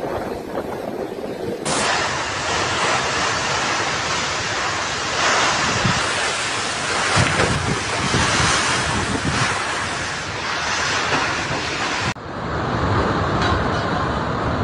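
Typhoon-force wind gusting and buffeting the microphone, with rain, and waves breaking at first. The sound changes abruptly about two seconds in and again near the end, where separate storm recordings are cut together.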